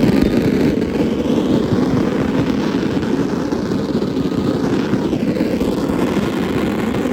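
Aerial firework shells bursting in a rapid barrage, the bangs running together into a continuous loud rumble.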